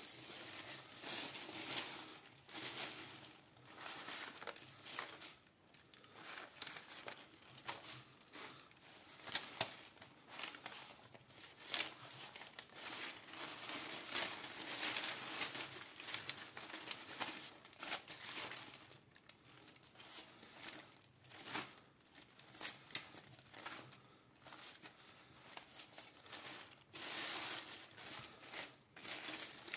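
Paper euro banknotes rustling and crinkling as gloved hands shuffle and gather them in a pile, in irregular rustles and crackles, some louder than others.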